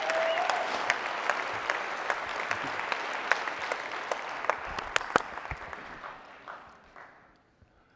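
Large audience applauding, a dense patter of clapping that dies away near the end.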